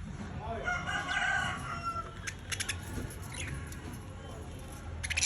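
Budgerigars chirping and warbling: a wavering pitched warble about a second in, followed by short, clicky chirps.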